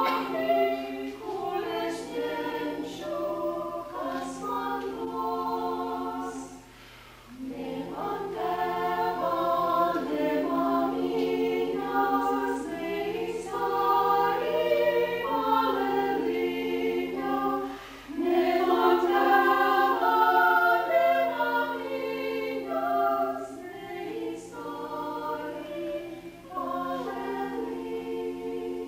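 Small mixed ensemble of women's and men's voices singing a cappella in harmony, held notes with short breaks between phrases.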